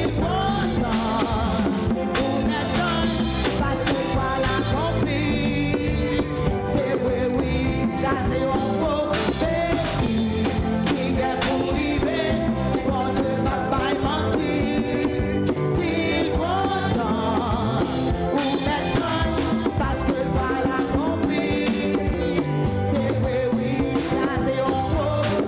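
A live church band plays an upbeat worship song with a drum kit keeping a steady beat, and voices sing over it.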